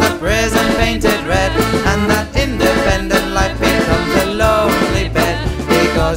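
Background music: an upbeat song with a steady beat.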